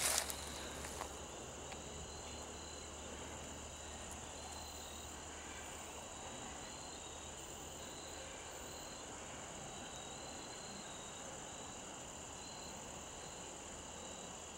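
Crickets and other insects trilling steadily, a high continuous trill with a lower pulsing chirp over it. A brief rustling crackle comes right at the start.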